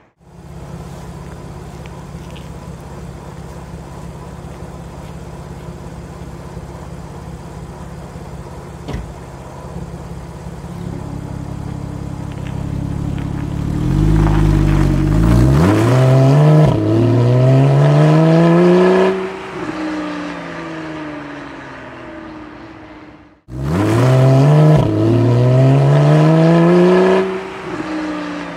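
Porsche 911 Carrera 4S (991.1) 3.8-litre flat-six exhaust, heard with the standard system and with the Porsche Sports Exhaust valves open. A steady engine note builds slowly, then the revs climb hard and drop back at each gear change before falling away. It cuts off suddenly, and a second acceleration with a gear change follows.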